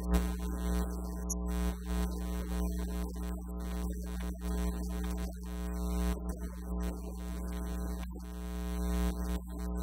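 Steady electrical mains hum in the sound system, a low buzz with a stack of overtones that holds the same pitch throughout.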